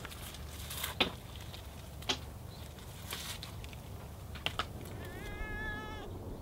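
A few sharp clicks and crackles, then a cat meows once, briefly, about five seconds in, its pitch wavering slightly.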